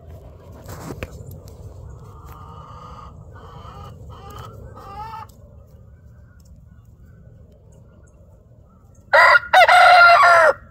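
Rooster crowing loudly near the end, one cock-a-doodle-doo lasting about a second and a half. It is preceded, about two seconds in, by a few seconds of fainter, broken calling.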